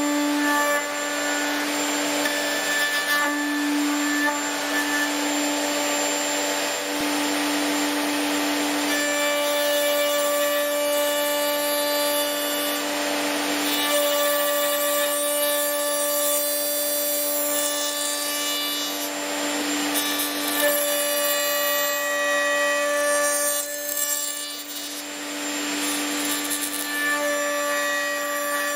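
Electric router running at speed with a steady whine, milling finger joints into wood, its cutting noise rising and falling with the passes; a short lull comes about 24 seconds in.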